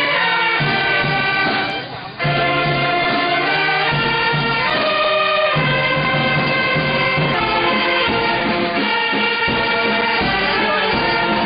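Brass band with saxophones playing a tune, with a short break in the music about two seconds in.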